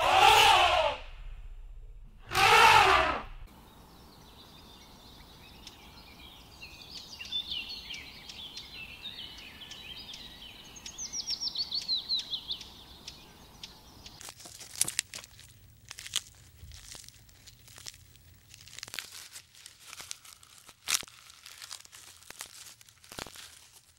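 Two loud, harsh blasts about a second long at the start. Then small birds chirping, with a quick falling trill, and from about halfway on the crisp crunching and clicking of an animal feeding.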